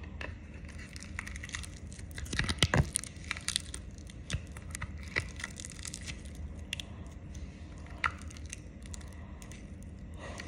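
Fingers squeezing and pulling apart fluffy Play-Doh Super Cloud slime in its plastic tub close to the microphone: irregular soft crackles and crunches, with a cluster of sharper clicks about two to three seconds in, over a low steady hum.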